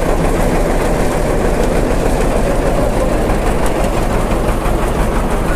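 Engine of the Elephanta Island toy train running close by as the train moves off slowly, a loud, steady rumbling hum.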